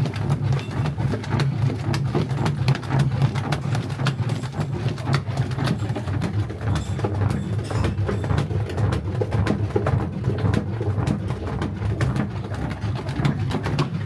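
Long wooden paddle stirring a thick white halva mixture in a large metal cauldron set over charcoal. There is a constant low rumble with frequent small knocks and scrapes of the paddle against the pot.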